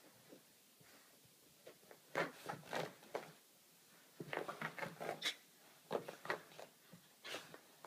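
A small dog wriggling on its back on carpet: faint scuffing and rubbing of its fur and paws against the carpet, in several irregular clusters of short scrapes, the first about two seconds in.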